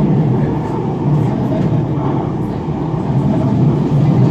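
Manchester Metrolink tram running along the track, heard from inside the passenger saloon: a steady low rumble of the moving tram.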